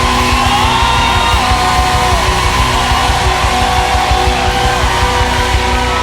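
Live worship band playing an instrumental passage: sustained, sliding electric guitar lines over bass and drums.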